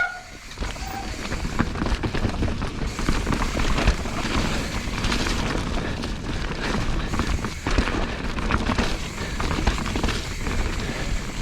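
A mountain bike running fast down a wet, rocky trail: wind buffeting the camera microphone, with steady clatter and knocks from the tyres and bike over rocks and roots.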